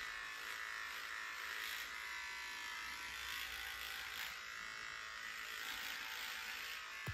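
Electric beard trimmer buzzing steadily as it cuts along the beard on the jaw and neck.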